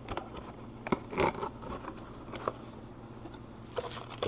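Handling noises from a handheld diagnostic meter being taken out and set up: scattered clicks and a short rustle about a second in, more clicks near the end, over a low steady hum.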